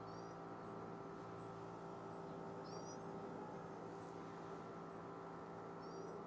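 Faint steady hum with soft high ticks repeating a little over once a second. Short, high rising chirps come three times: just after the start, near the middle, and near the end.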